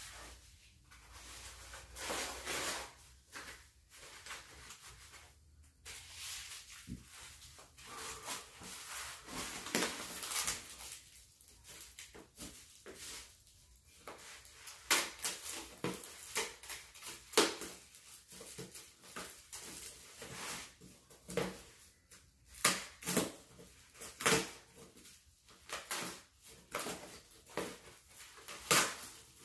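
Foam and plastic packing wrap crinkling and rustling in short, irregular bursts as it is handled and cut open with a knife.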